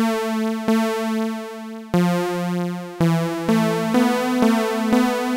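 Xfer Serum software synthesizer patch playing a slow run of single notes, each held about half a second to a second, with a bright, buzzy tone full of overtones. The patch has its second oscillator slightly detuned and LFO and Chaos modulation on the pitch to imitate an analog synth's drift, with the filter still off.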